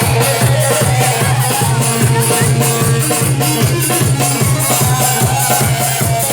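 Folk dance music with a steady, regular drum beat over a held low drone and a melody line.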